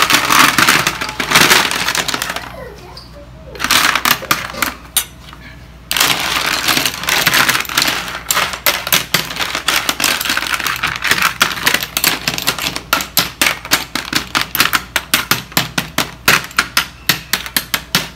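Freshwater clams in their shells clattering as they are tipped from a stainless steel bowl onto a metal sheet pan, then a metal spoon pushing them around the pan in a run of quick clicks and clacks of shell on shell and shell on metal. Loudest in the first couple of seconds of the pour, quieter for a few seconds, then the spreading clicks become steady and distinct.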